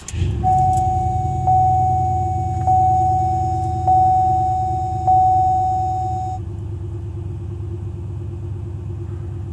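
A 2008 Pontiac Grand Prix GXP's 5.3-litre LS4 V8 starts and settles into a steady idle, heard from inside the cabin. Over it, the car's warning chime dings about five times, a little over a second apart, then stops.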